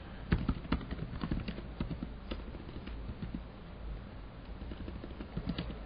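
Computer keyboard typing: irregular key clicks as shell commands are entered, with a short lull a little past the middle.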